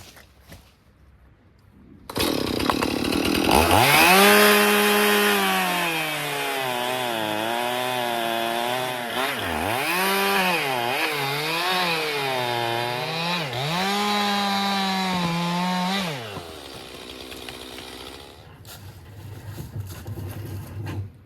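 Two-stroke chainsaw bucking a red oak log. It revs up about two seconds in and its pitch dips repeatedly as the chain bites under load, then it cuts out about sixteen seconds in and the sound falls much quieter.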